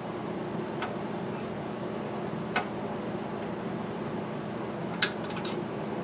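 A few sharp clicks and light taps of small parts and hardware being handled, one about two and a half seconds in and a quick cluster of clicks near the end, over a steady fan-like hum.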